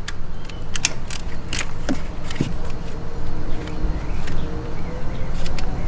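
Scattered, irregular metallic clicks and clinks of a wrench and socket working a 13 mm alternator mounting bolt, over a steady low background rumble.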